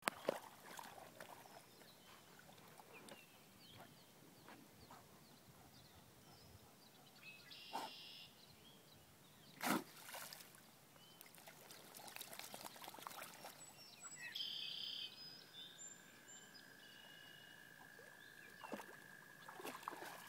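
A pet's single sharp sneeze into pond water about halfway through, over a faint steady trickle of water.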